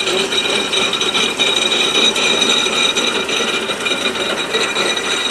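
Well-drilling rig's winch and machinery running with a continuous metallic clatter and a steady high whine, as the drilling tool is lowered down the borehole to drill.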